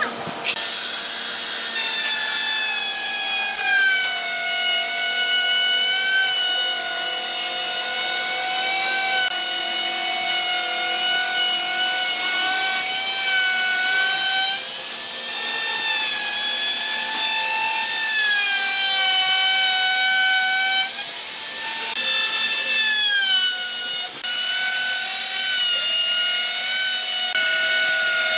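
A high-pitched electric power tool running against wood. Its motor whine sags in pitch and recovers every few seconds as the tool bites in and eases off, with brief breaks about 21 and 24 seconds in.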